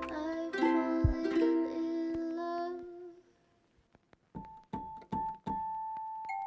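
Background music: soft keyboard chords that die away about halfway through, a short silence, then a few single notes, the last one held.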